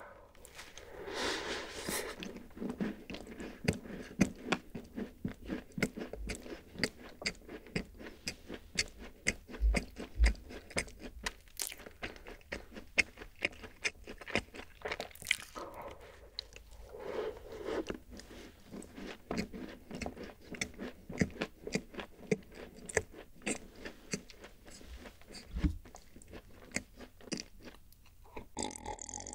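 A crisp rice-oat cookie being bitten into about a second in, then chewed with many small crunches, close on the microphone.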